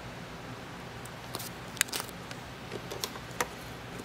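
Scattered small, sharp plastic clicks as a wire's terminal pin is worked into a multi-pin wiring connector by hand, beginning about a second in, over a steady low hum.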